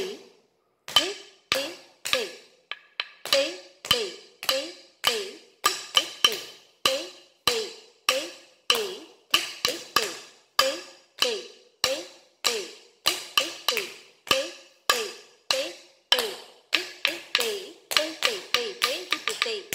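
Wooden stick struck on a wooden block (tattukazhi) keeping time for Bharatanatyam stamping steps, about two beats a second, each beat joined by a short chanted "tei". Near the end the beats quicken.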